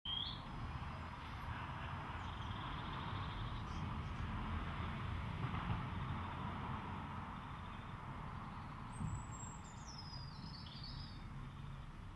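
Outdoor background ambience: a steady low rumble and hiss. Near the end a high, thin whistle falls in pitch over about two seconds.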